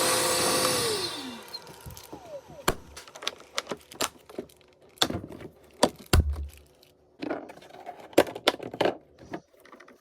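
A cordless wet/dry vacuum's motor winds down, its whine falling in pitch over the first second or so. Then comes a run of irregular sharp clicks and knocks as hard parts of the vacuum are handled.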